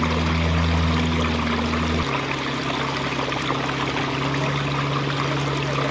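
Water running over rocks in a stream bed, a steady rushing with a low hum underneath that shifts pitch about two seconds in.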